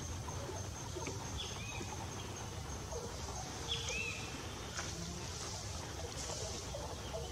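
Forest ambience: a steady high-pitched whine throughout, a couple of short bird chirps about one and a half and four seconds in, and a low rumble underneath.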